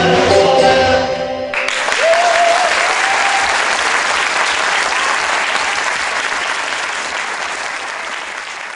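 A Persian traditional ensemble of santour, tar, tonbak and daf plays its last notes. About one and a half seconds in, the music stops and audience applause begins, slowly fading.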